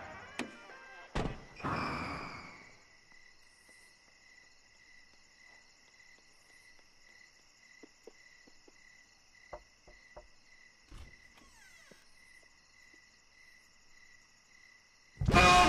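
Night ambience of crickets chirping in an even, pulsing rhythm, with a few faint clicks and knocks scattered through it. A brief rush of noise comes about two seconds in, and music starts loudly just before the end.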